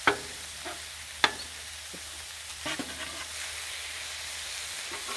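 Ground beef sizzling on a Blackstone flat-top griddle while a metal scraper chops and scrapes it against the steel plate: a sharp clank right at the start and another about a second later, with lighter taps and scrapes after.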